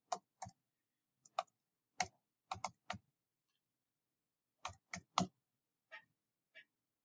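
Computer keyboard being typed on: about fifteen separate key clicks in short irregular runs, with a pause of about a second and a half in the middle.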